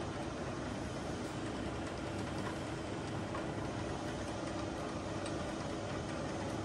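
Motorized vertical feed of a Topwell heavy-duty vertical turret milling machine running, driving the knee up or down with a steady mechanical hum and a faint held tone.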